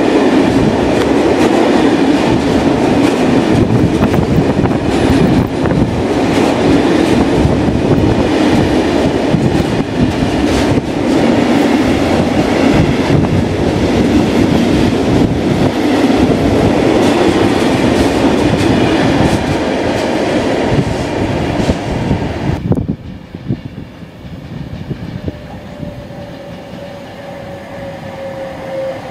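Loaded timber wagons of a freight train rolling past, a loud continuous rumble and clatter of wheels over rail joints. About 23 s in it gives way abruptly to a much quieter scene with an arriving Class 390 Pendolino electric train, a faint falling whine.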